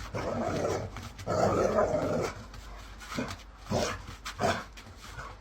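A dog vocalizing: two long, rough sounds of about a second each, then three short sharp ones in quick succession.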